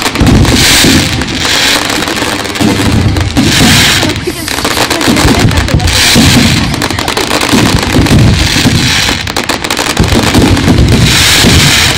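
Fireworks going off in a loud, continuous display, with repeated crackling bursts a second or so long over a steady low rumble of booms.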